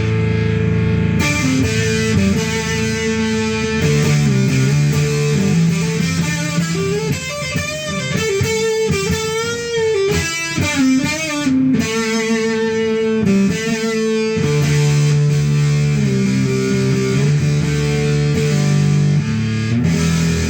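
Kiesel electric guitar with humbucking pickups played through a home-built distortion/fuzz pedal made from a Fisher-Price 826 kids' cassette player, with the guitar's volume rolled up: distorted sustained chords and riffs. Around the middle come bent and wavering notes.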